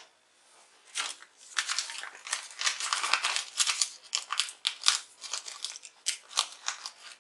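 Rapid crinkling and crackling handling noise, a dense run of small clicks and rustles that starts about a second in.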